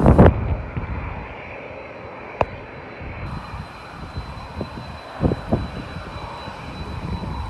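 Aircraft engines running steadily in the distance, an even hum. A sharp click about two and a half seconds in and a couple of short knocks a little after five seconds.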